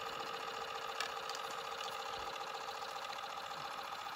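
Steady whir of a small motor running on a fishing boat, with one short click about a second in.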